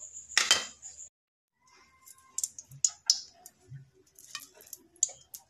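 Hot cooking oil crackling and popping in a wok, a scatter of sharp irregular pops. About half a second in comes a single loud, short rush of noise.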